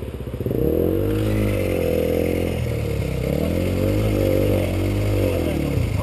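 Dirt bike engine running close by: a rapid idle beat, then from about half a second in it is revved, its pitch rising and falling in repeated swells.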